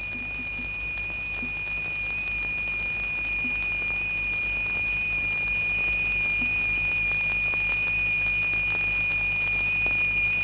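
Steady high-pitched sine tone from the oscillator that drives the vibrating plate, making the sand stream in travelling waves. The tone slowly grows louder, over a faint low hum.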